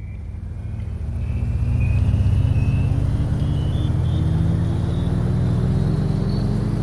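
An engine running and slowly rising in pitch: a low rumble with a faint high whine climbing above it.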